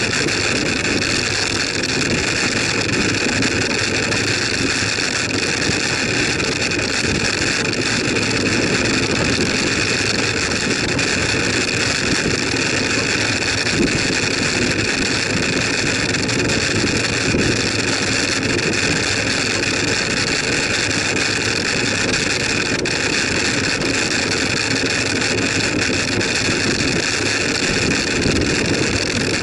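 Steady wind and tyre noise of a bicycle riding along a tarmac road, with wind buffeting the microphone and a constant high whine over it.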